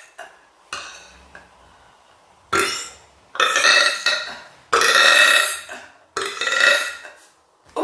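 A woman burping: a short one about a second in, then four long, loud, pitched burps one after another with short pauses between.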